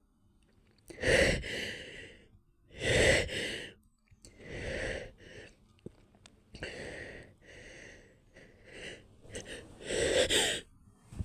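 A person's breathy gasps and sighs, a series of sharp breaths a second or two apart, as a sneeze builds up.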